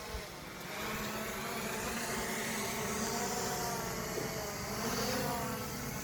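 A motor running steadily, its pitch wavering slightly.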